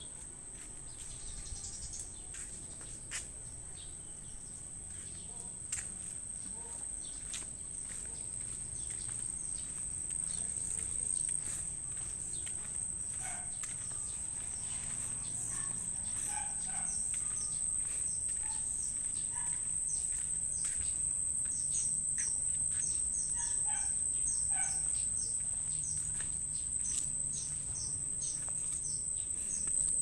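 Birds chirping over a steady high insect drone. In the last third a bird gives quick runs of short high notes.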